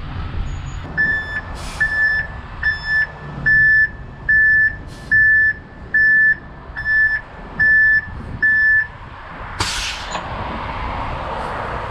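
A truck's reversing alarm beeping about ten times at a steady pace of a little over one beep a second, then stopping, over a running engine. Short bursts of air hiss come between the beeps, with the longest just after the beeping stops.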